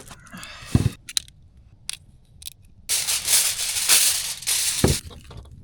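Plastic food packaging crinkling and rustling as it is handled and opened, after a few knocks and clicks. A low thump comes about a second in and another near the end.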